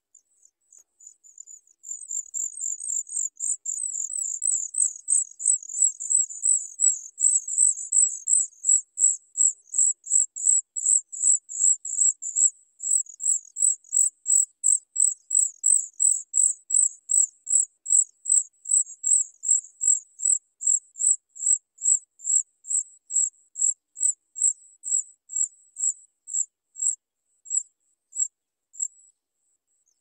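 Sooty chat nestlings begging: a long run of high, thin cheeps. The calls are crowded and overlapping at first, then settle into an even beat of two or three a second that slows and thins out near the end.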